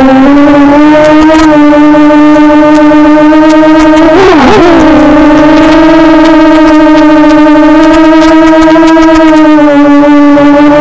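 SRD250 Storm quadcopter's brushless motors and propellers whining in flight at a steady pitch. About four seconds in, the pitch briefly dips and swings back up as the throttle changes, then settles again.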